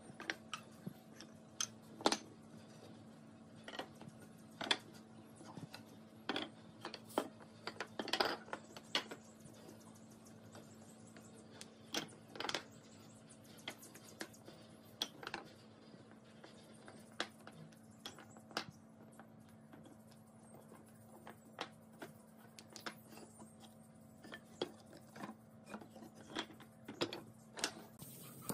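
Wooden strips knocking and clattering against each other and a wooden workbench as they are lifted out and set down, in scattered light knocks with a faint steady hum underneath.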